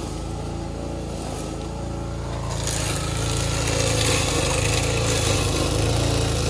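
Small petrol engine of a wheeled walk-behind string-trimmer mower running steadily under load, cutting through dense weeds. About two and a half seconds in it gets a little louder, with a hiss of cutting.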